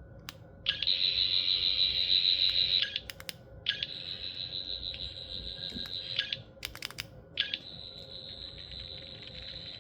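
Gold toy sonic screwdriver of the Tenth Doctor's design playing its high, pulsing buzz through its small speaker three times, each buzz about two to three seconds long, with button clicks between. The first buzz is the loudest.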